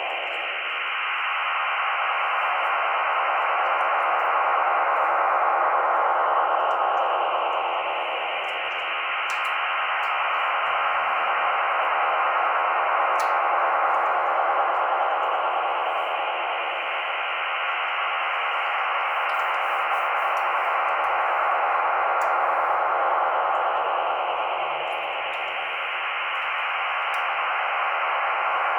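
A radio receiver's speaker putting out loud, steady rushing noise, squeezed into the radio's narrow audio band. Slow falling sweeps pass through it several times, with the level dipping about every eight seconds. This is on-air interference that the uploader suspects comes from a new radar.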